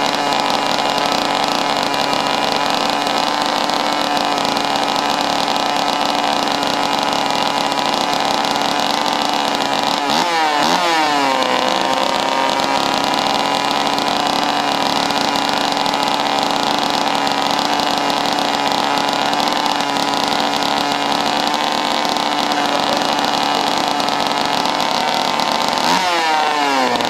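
Two-stroke chainsaw engine running steadily at speed while it powers a popcorn popper mounted on the saw. Its pitch sweeps down sharply for a moment about ten seconds in and again near the end.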